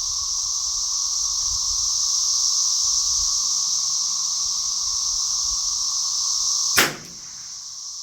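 Cicadas singing in a loud, steady chorus, cut through near the end by a single sharp crack of a .22 LR rimfire rifle shot. After the shot the chorus is fainter.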